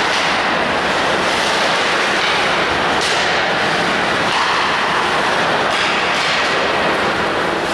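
Steady loud rushing din of an ice hockey rink during a game, with a few sharper hissing scrapes over it.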